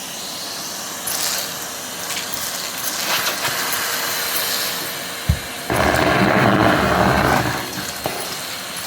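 Henry vacuum cleaner running and sucking up plastic beads, which rattle and crunch through the hose. A thump comes about five seconds in, then a louder stretch of clattering lasting about two seconds.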